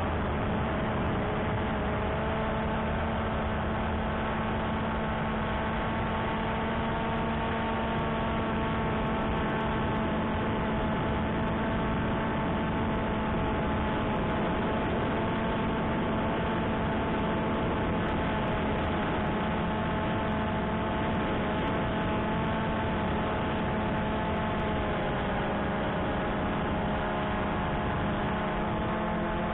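Cheerson CX-20 quadcopter's four brushless motors and propellers running steadily in flight, heard from the onboard camera: a constant multi-tone hum over a rush of air noise, the pitch wavering slightly near the end.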